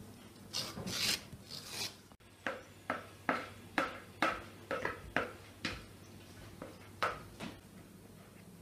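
A spoon scraping against a glass bowl in short repeated strokes, about two a second, as chocolate cream is stirred and scooped out.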